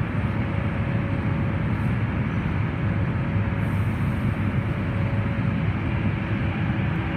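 MTR Changchun C-Train pulling out of an underground platform: the steady, low noise of the moving train.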